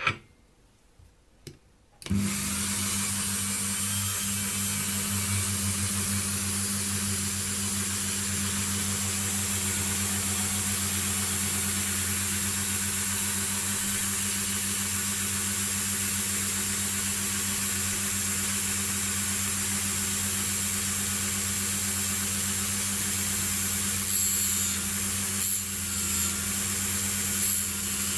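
Dremel rotary tool switched on about two seconds in and running at a steady speed with an even hum, polishing a small metal part with a white polishing wheel. Near the end, rubbing and ticking as the wheel is worked against the part.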